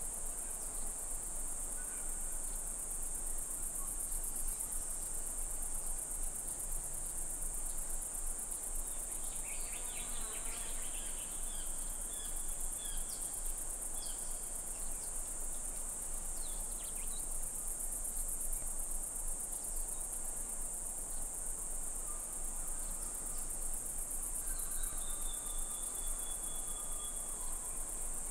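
Crickets chirping: a continuous high-pitched trill that holds steady, with a few short whistled calls around the middle and near the end.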